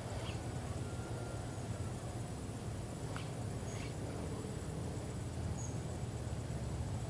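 Outdoor ambience dominated by a steady low rumble of wind on the microphone, with a few faint clicks and a few short, high chirps from small animals.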